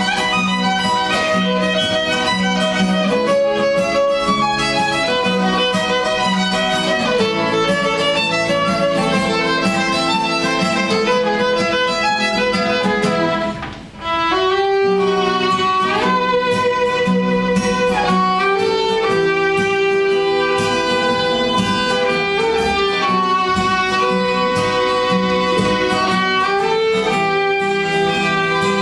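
Solo violin playing a slow, sustained melody with accompaniment, with a brief break in the music about halfway through.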